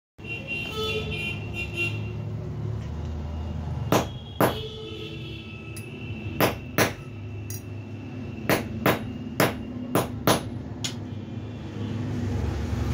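About ten sharp knocks, mostly in quick pairs, like hammer blows, starting about four seconds in, over a steady low background hum.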